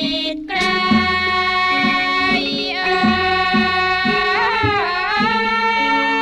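Thai classical music for a traditional dance: a long held melody line rich in overtones that swoops down in pitch twice, over regular low drum strokes.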